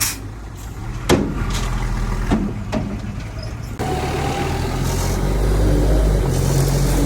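Heavy diesel engine of earthmoving machinery running, with a few short knocks in the first three seconds. About four seconds in, the engine grows louder and stays loud.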